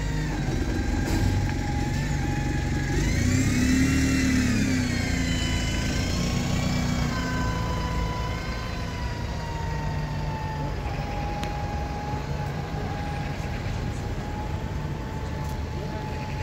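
Single-deck diesel bus pulling away: its engine revs up and falls back about three to five seconds in, then runs on more steadily and grows a little fainter as the bus drives off.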